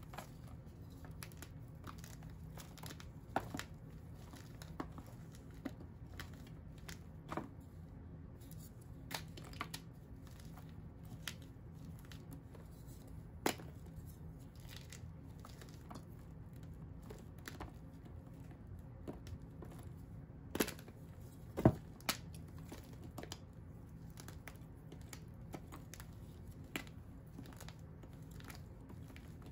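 Dyed and dried chalk blocks crumbled and snapped apart by hand: dry crunching with scattered sharp cracks, the loudest pair a little past two-thirds of the way through, over a low steady hum.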